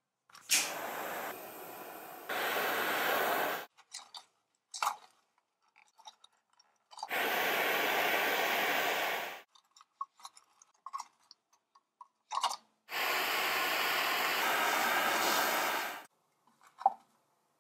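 Handheld butane torch burning with a steady hiss in three bursts of about three seconds each, its flame playing on a rusted tin-plate tab. Small clicks and taps come in the gaps between bursts.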